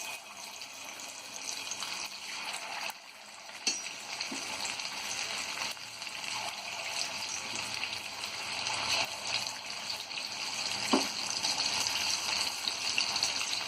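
Marinated chicken 65 pieces frying in hot oil in a kadai: a steady sizzle that grows louder, with a few sharp clicks.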